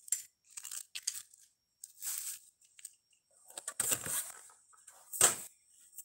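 Unboxing handling sounds: short rustles and crinkles of packaging as small figurines are handled, a longer rustle about four seconds in, and one sharp click about five seconds in.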